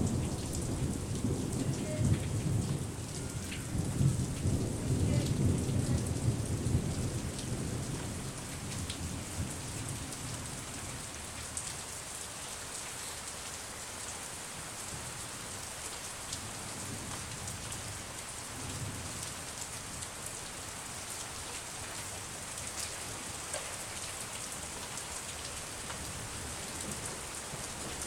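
Steady rain falling in a thunderstorm, with a rolling rumble of thunder over the first several seconds that dies away, leaving the rain alone.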